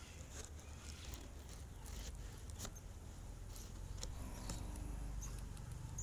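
Leaves rustling and scattered soft clicks and taps as the phone is pushed in among guava leaves over a bird's nest, with a low steady hum underneath.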